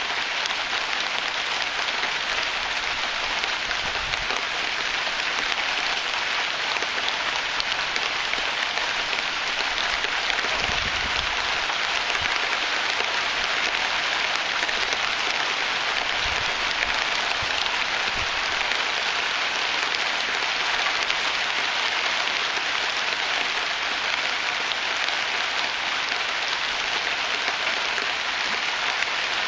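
Heavy rain falling steadily, a dense even hiss, with a few brief low rumbles along the way.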